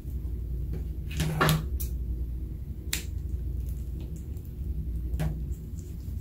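A few sharp clicks and small pops of thick glittery slime being squeezed out of a plastic piping bag into a glass dish, the loudest cluster about a second and a half in, over a steady low hum.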